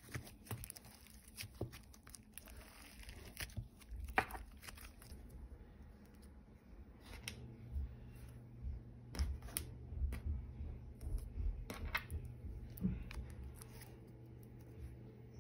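Thick sprinkle-studded slime being stretched, folded and pressed by hand, giving irregular small sticky crackles and pops over a low handling rumble, with a few louder snaps.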